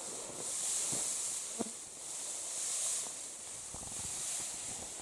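Dry hay rustling as it is gathered and packed onto a haystack by hand, swelling twice, over a steady high hiss.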